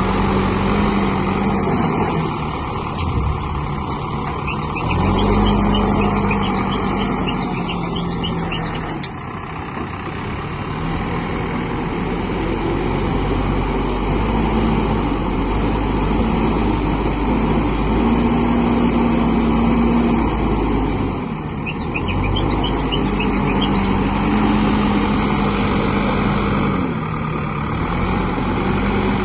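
ACE backhoe loader's diesel engine running, its speed rising and falling several times.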